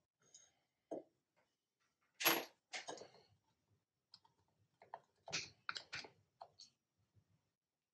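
Metal hand tools clicking and clacking against a Bosch car alternator's rear end housing held in a vise: scattered short clicks, the loudest a little over two seconds in, and a quick run of them around five to six seconds in.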